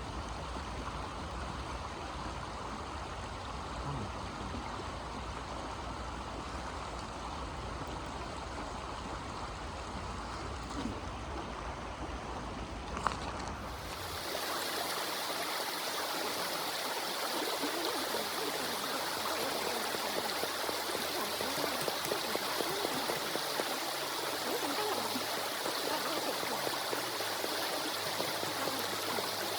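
Steady rushing noise, with a sharp click about 13 seconds in. About 14 seconds in it cuts to a brighter rushing sound scattered with small crackles or ticks.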